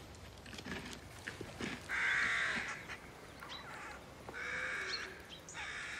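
A bird giving harsh, crow-like caws: a loud call about two seconds in, then two shorter calls in the second half.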